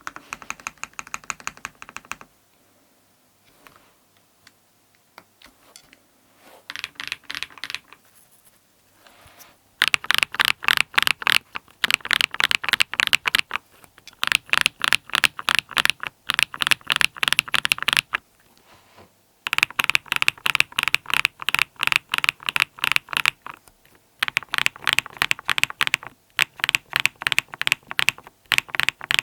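Typing on a mechanical keyboard with lubed BSUN Raptor linear switches, a polycarbonate plate, foam and PBT doubleshot keycaps. A burst of keystrokes, then a quieter stretch with a few scattered presses, then fast continuous typing from about ten seconds in, broken by two short pauses.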